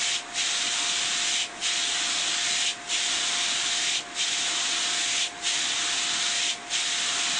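Drum filter's backwash spray jets hissing steadily at about 90 psi against the turning mesh screens, cleaning off the sediment that has clogged them. The hiss dips briefly about every second and a quarter, over a faint steady hum.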